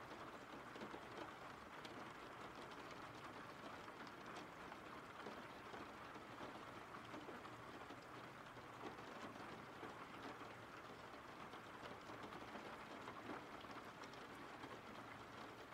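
Faint steady rain: an even hiss of falling rain with many small drop taps scattered through it.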